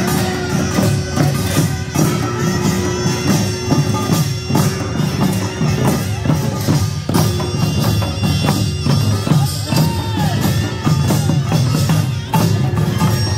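Korean pungmul farmers' band music played live: a group of buk barrel drums and janggu hourglass drums beating together in rhythm, with a held pitched melodic line sounding over the drums.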